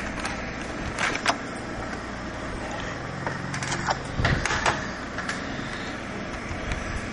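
Small brushed vacuum-cleaner motor running with a steady hum, freshly cleaned, with a few clicks and knocks as it is handled and set down.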